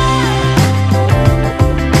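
Background music with a guitar, a bass line and a steady beat.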